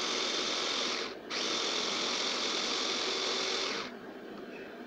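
Electric food chopper running, its blade chopping bread pieces into crumbs. The motor stops for a moment about a second in, starts again, and cuts off near the end.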